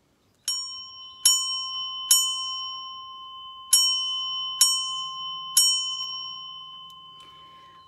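A red tap bell is struck on its plunger six times, in two groups of three, and each strike leaves a clear ding that rings on and slowly fades. It is rung as the signal that circle time is starting.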